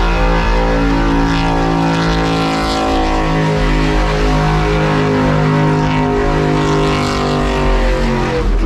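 Lowered Chevrolet Silverado pickup's engine held at high revs while its rear tyres spin in a smoky burnout. The revs waver and drop off near the end.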